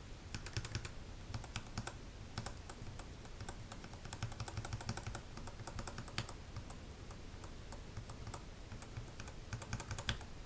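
Gateron Yellow linear mechanical key switches being pressed rapidly, a fast, fairly quiet patter of key clacks in flurries. It thins out after the middle and picks up again near the end.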